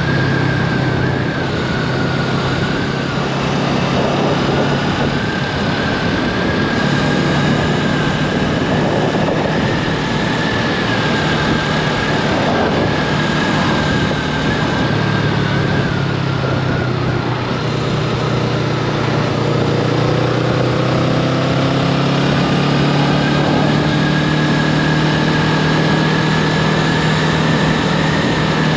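Honda Rebel 500's parallel-twin engine running steadily at highway cruising speed, about 85 km/h, with rushing wind and road noise over the microphone.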